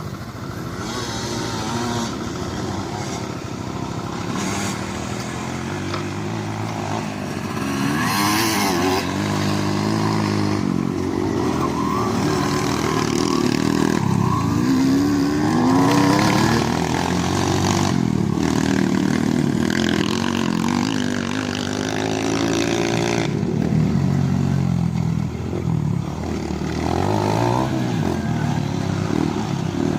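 Engines running and revving, their pitch wavering up and down, with more than one engine sounding at once.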